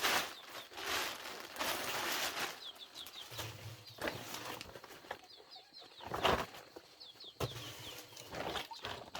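Chickens moving about: repeated short rustles and wing flaps, with many short, high, falling chirps like chicks peeping.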